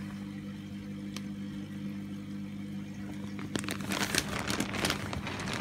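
Steady low electrical hum from running aquarium equipment. A little over halfway through, a dense stretch of crackling and rustling, handling noise as the phone is swung around, comes in over it.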